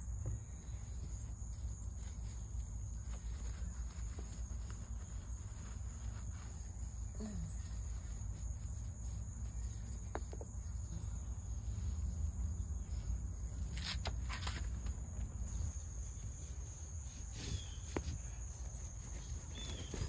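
A steady, high insect trill, with a low rumble and a few short knocks about two-thirds of the way through.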